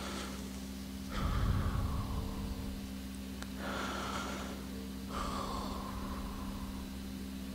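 A man breathing slowly and deeply close to the microphone, a few long breaths in and out, with a low rumble of movement about a second in. A steady low hum runs underneath.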